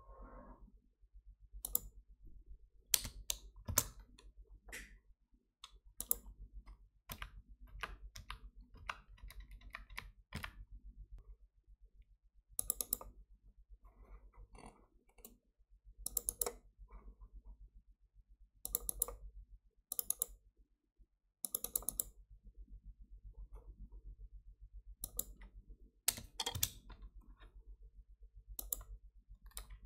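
Computer keyboard keystrokes and mouse clicks, irregular and scattered throughout, over a low steady hum.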